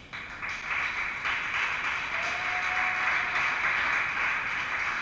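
Spectators applauding, starting suddenly and carrying on steadily.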